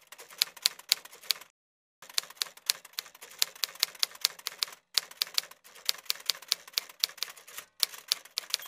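Typewriter keystroke sound effect: quick, irregular clacks, several a second, in runs broken by brief pauses, accompanying text being typed onto the screen.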